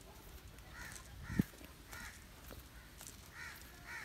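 Crows cawing faintly, several short calls spread through a few seconds, with a single low thump about a second and a half in.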